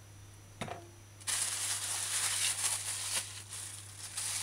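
Water running from a kitchen tap, switched on suddenly a little over a second in and running as a steady hiss while a knife is rinsed clean.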